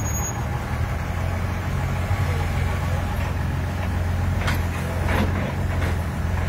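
Heavy diesel engines of a dump truck and a backhoe loader running steadily, with a few sharp knocks between about four and a half and five and a half seconds in.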